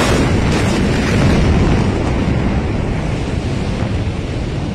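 Blast of the Beirut port explosion reaching the microphone: a sudden loud crack, then a sustained low rumble with wind-like buffeting on the microphone that eases only slightly.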